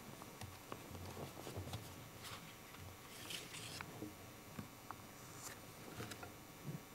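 Quiet church room tone with faint scattered rustles and small clicks and knocks.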